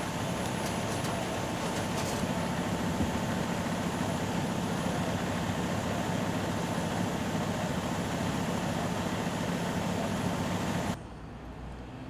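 Fire truck's diesel engine idling steadily close by, a constant low rumble and hum. It cuts off abruptly about eleven seconds in, leaving quieter street background.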